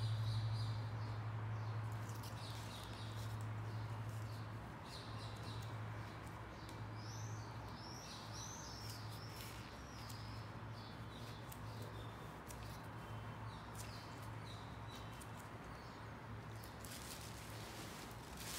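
Quiet workroom sound with a steady low hum, faint rustling of the rubber drysuit as it is handled, and a bird chirping several times about midway. Near the end there is louder rustling as the hands move over the drysuit and a plastic sheet.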